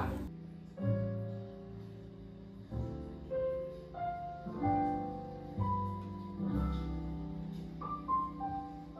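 Instrumental background music: a slow melody of held notes over sustained chords, with a new note or chord about every second.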